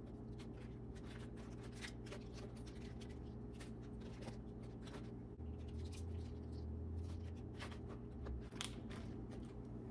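Soft rustling and light crackling of crisp romaine lettuce leaves and paper towels being handled and laid into a plastic container, over a steady low hum.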